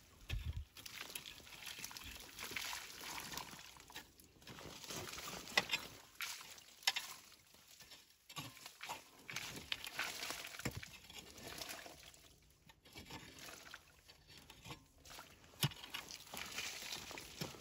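Three-tined hand cultivator raking and scraping into a dirt bank among tree roots, loose soil and grit pattering down, in irregular bursts with a few sharp clicks.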